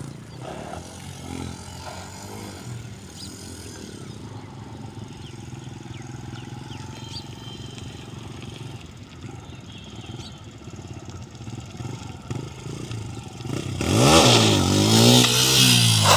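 Motorcycle engine running quietly for most of the time, then revved hard near the end, its pitch climbing and falling, together with a loud hiss.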